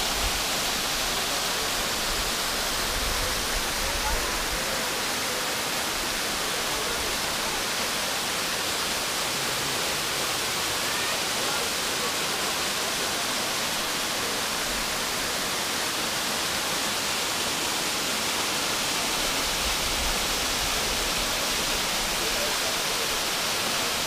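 Waterfall of many thin streams pouring over a mossy rock face into a shallow pool: a steady, even rushing hiss.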